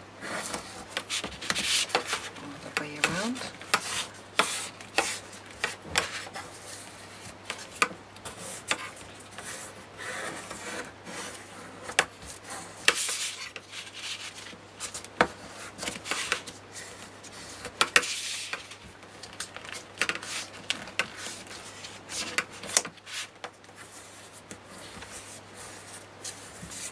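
Bone folder rubbing and scraping along the folded edges of a chipboard book cover in repeated strokes, with sharp clicks and taps from the tool and hands in between.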